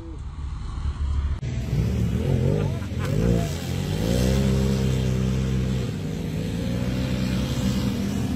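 Side-by-side and ATV engines working through a mud pit: louder from about a second and a half in, an engine revs up and down several times, then runs at a steady, fairly high drone.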